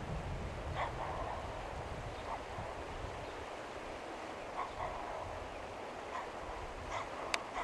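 Several short animal calls, spaced a second or two apart, with one sharp click near the end.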